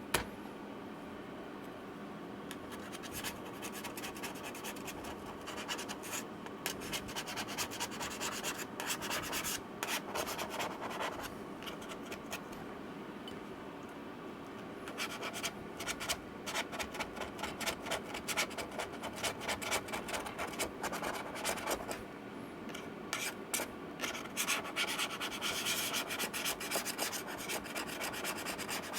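Repeated scraping and rubbing strokes in bursts with short pauses: cleaning up the mess left inside a MacBook Pro's case after the old battery has been pulled out.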